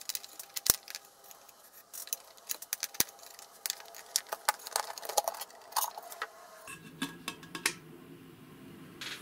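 Handling noise as the cover of a vertical gyroscope's housing is worked loose and lifted off: a rapid run of sharp clicks and light metallic rattles, with two louder knocks, about a second in and at three seconds, then quieter scraping near the end.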